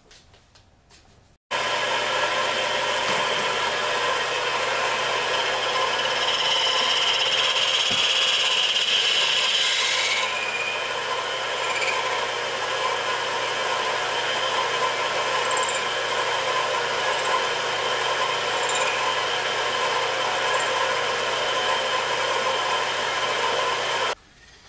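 Small benchtop metal lathe running while a drill bit in the tailstock chuck is fed into a turned bushing to open its bore to 7 mm. A steady mechanical whine with a harsher cutting screech for a few seconds near the middle; it starts abruptly about a second and a half in and stops abruptly just before the end.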